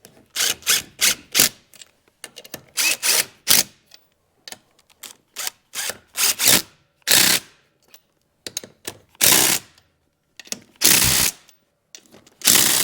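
A power tool running a socket on 9/16 bolts in about a dozen short bursts, each under a second, with pauses between.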